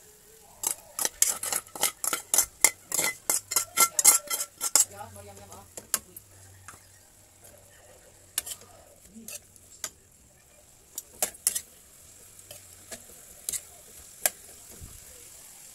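Metal turner scraping and knocking against a metal wok as vegetables and pork are stir-fried: a quick run of strokes, about four or five a second, for the first five seconds, then scattered single scrapes.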